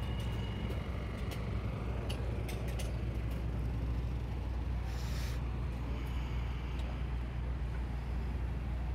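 City street traffic: a steady low rumble of passing cars, with a few sharp clicks in the first few seconds and a short hiss about five seconds in.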